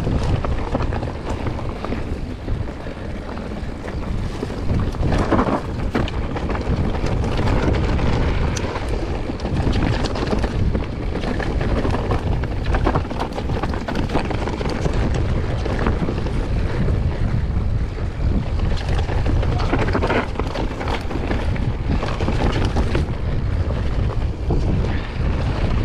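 Wind buffeting the microphone of a camera riding on a downhill mountain bike, over the steady rumble of tyres on a rough trail and the rattle and clatter of the bike over bumps.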